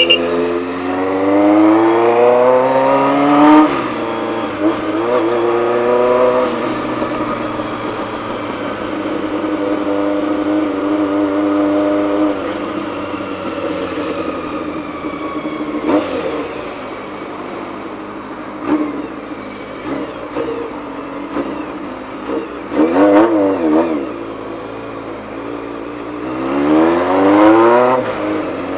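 Honda CBX 750's air-cooled inline-four engine under way. Its pitch climbs through two gears in a row, dropping at the shift between them, then holds at a steady cruise. A short rev blip comes about two-thirds through, and the engine climbs again near the end.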